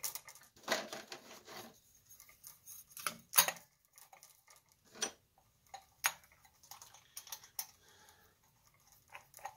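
Hands packing wires into a brass chandelier body and fitting its brass cap: a soft rustle of wire near the start, then scattered small clicks and taps of metal on metal, the sharpest about three and a half seconds in.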